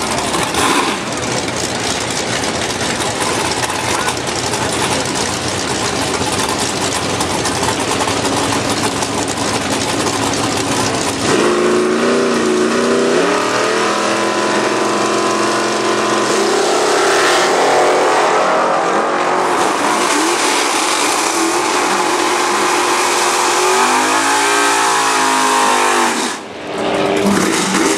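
Drag-race car engines running at the staging lanes, over general track noise and voices. From about the middle the engine note becomes clear and shifts in pitch, and near the end one engine is revved up and brought back down in a single smooth rise and fall.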